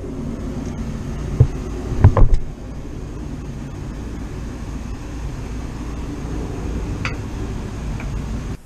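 A steady low rumbling hum with a few sharp knocks, the loudest two a little after two seconds in; the hum cuts off abruptly near the end.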